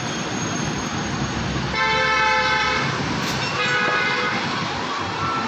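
Vehicle horns sounding twice, a longer blast about two seconds in and a shorter one near four seconds, over steady traffic noise.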